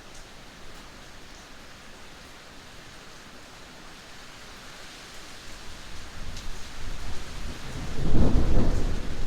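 Steady rain hissing, with a deep rumble of thunder building from about six seconds in and loudest near the end.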